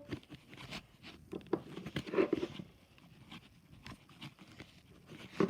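Light scattered taps, clicks and rustling of hands working Play-Doh on a plastic tray, busiest about two seconds in.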